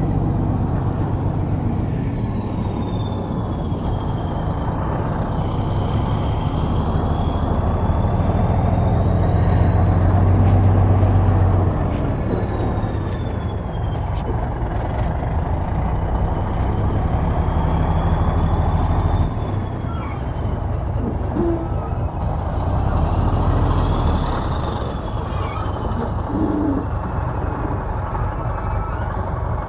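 Komatsu D65EX bulldozer's diesel engine working, its heavy low note swelling and easing several times as the load changes, loudest about ten seconds in. A thin high whine slowly rises and falls above it.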